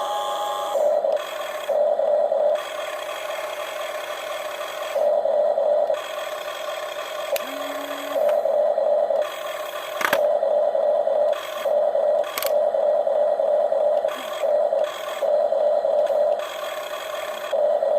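Small electric motors and plastic gearboxes of radio-controlled excavators whirring in stretches of one to three seconds, starting and stopping as the controls are worked, with a sharp click twice.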